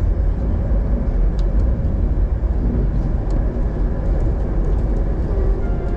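Passenger train running, heard from inside the carriage: a steady low rumble with a few faint clicks.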